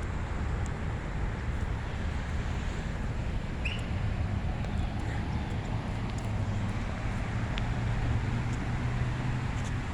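Steady outdoor background noise with a low, even hum, and one short high chirp about four seconds in.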